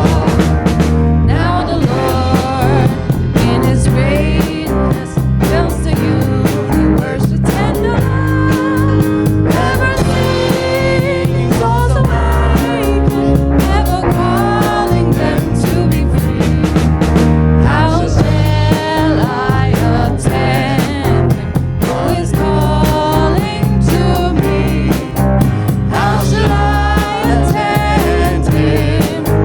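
A live worship band playing a praise song: singing over electric guitar, bass and a drum kit with a steady beat.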